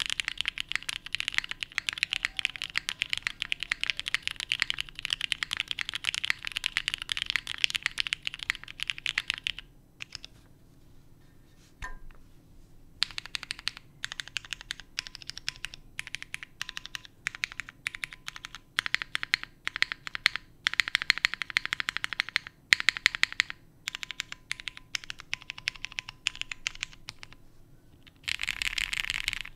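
Typing on a foamless mechanical keyboard with Cherry MX Black linear switches (lubed Sprit springs, Deskey films) and GMK Hanok keycaps. About ten seconds of fast continuous typing, a pause of about three seconds, then keystrokes in separate runs and single presses, with a dense burst of typing near the end.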